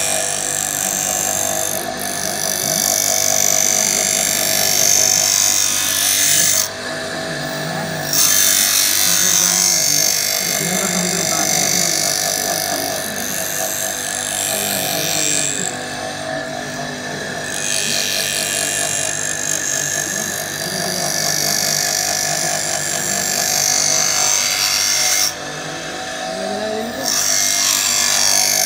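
Surface grinder running: the motor and abrasive wheel keep up a steady whine while the wheel grinds a metal workpiece with a high hiss. The hiss drops away for a second or two about three times.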